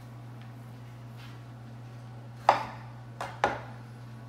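Chef's knife knocking on a wooden cutting board as a lemon is cut in half: one sharp knock about two and a half seconds in, then two more close together about a second later, over a steady low hum.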